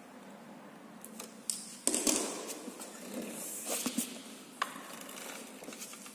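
Hand-tool and handling noise on a kid's electric scooter: a screwdriver working a screw on the metal footrest bracket, then scraping and a louder knock against the plastic body about two seconds in, and a few sharp clicks around four seconds.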